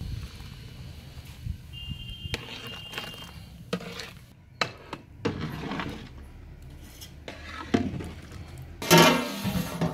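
Long metal spoon stirring sliced mushrooms in water in a large aluminium pot: irregular clinks, knocks and scrapes of metal on metal, loudest near the end.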